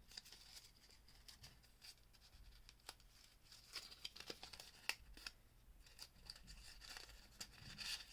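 Faint rustling and scattered light clicks as a craft rose's stem is twisted through its calyx.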